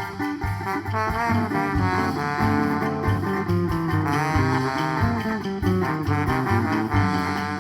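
A band playing an instrumental break between sung verses: a gliding lead melody over guitar and a pulsing bass line.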